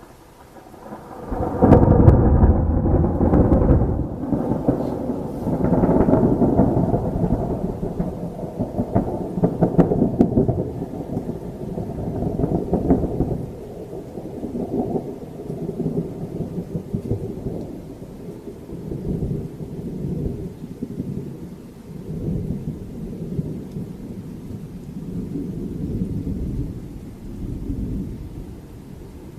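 Thunder: a loud crash about a second and a half in, then a long rolling rumble that swells again several times and slowly dies away.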